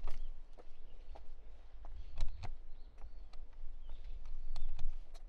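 Footsteps on a hard path, uneven steps a little under two a second, over a steady low rumble.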